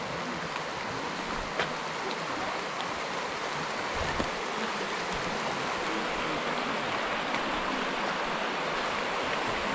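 Shallow mountain stream rushing steadily over stones, with a couple of brief faint ticks.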